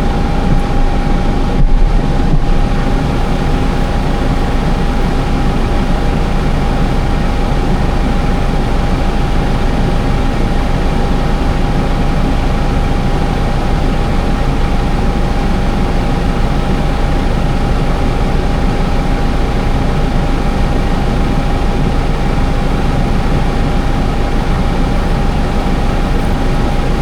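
Case IH Farmall 110C tractor running steadily, with a constant whine over the engine noise and a brief louder bump about two seconds in.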